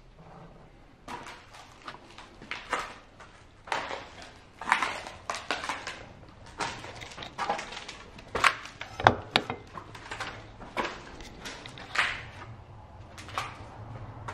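Footsteps crunching and scuffing on a debris-strewn tile floor, irregular knocks about two a second, starting about a second in.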